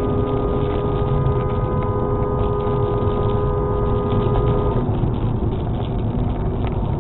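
A car horn held down for about five seconds, two steady notes sounding together, cutting off about five seconds in, over the steady road and tyre noise heard inside a moving car on the highway.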